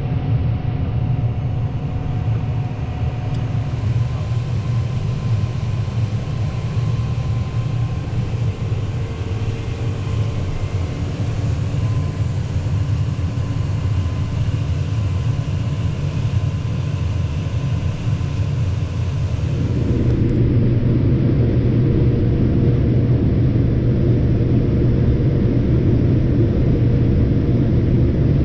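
Diesel farm machinery running steadily, a deep rumble with a few steady engine tones over it. About two-thirds of the way through, the sound changes abruptly to a louder, denser running sound.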